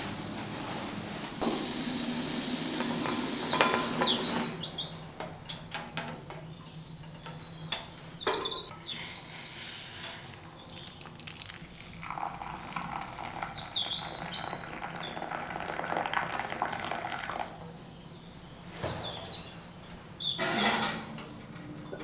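Small birds chirping now and then over a steady background hiss, with a few scattered knocks and clatters.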